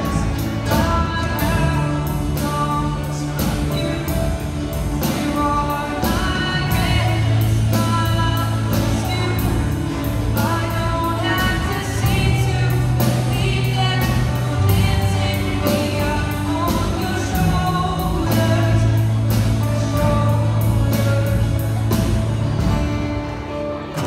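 Live band playing a song: singing over keyboard, guitars and a steady drum beat, with held low bass notes. The music eases off near the end as the song finishes.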